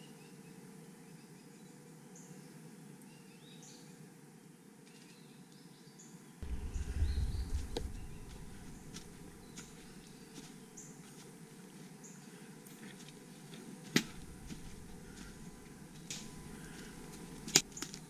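Woodland birds giving scattered short chirps. A low rumble comes in about six seconds in and dies away over the next couple of seconds, and two sharp clicks sound near the end.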